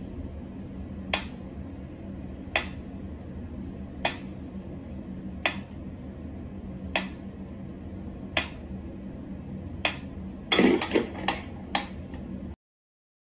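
Mechanical pyramid metronome ticking slowly, about one tick every second and a half. Near the end comes a brief flurry of louder knocks and rattling.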